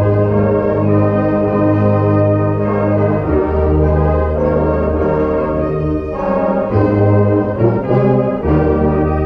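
Marching band brass playing a slow piece in long held chords, with sousaphones carrying a strong bass line; the chords change every second or two.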